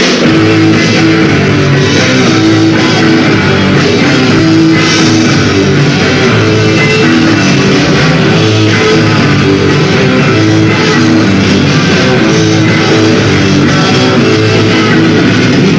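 Live rock band playing an instrumental passage with electric guitars, bass guitar and drum kit, loud and steady throughout, without vocals.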